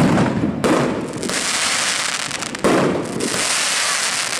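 Fireworks going off: three sudden bangs of bursting shells, at the start, about half a second in and near three seconds in, with dense crackling in between.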